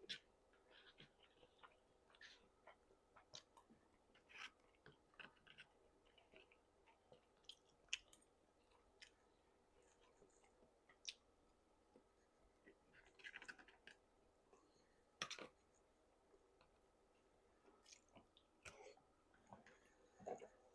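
Faint, irregular wet mouth clicks and smacks of someone chewing food, with a few sharper clicks along the way.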